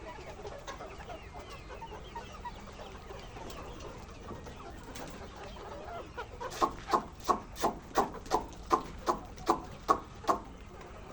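A flock of chickens clucking continuously, many birds overlapping. From a little past the middle comes a run of about a dozen loud, evenly spaced clucks, roughly three a second, that stops shortly before the end.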